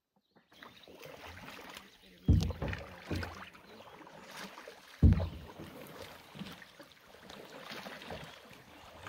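Canoe paddling: a paddle dipping and pulling through calm water with splashing and dripping. Two heavy low thumps come about two and five seconds in, with a lighter one between.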